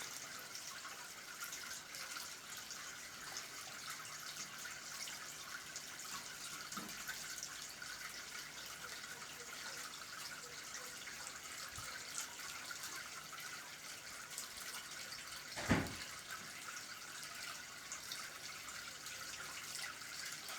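Water falling steadily from a small waterfall into a portable ornamental pond, splashing and trickling. One short low thump about three quarters of the way through.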